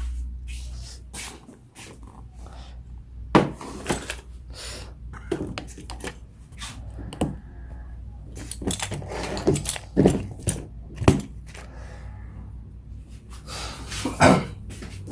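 Kitchen handling sounds: irregular knocks and clinks of utensils and dishes, a few sharper than the rest, over a low steady hum.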